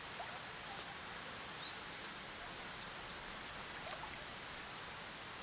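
Steady outdoor hiss with a few faint, short bird chirps scattered through it.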